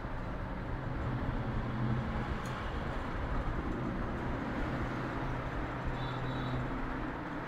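Steady background rumble of street traffic, with low engine hums that swell and fade twice.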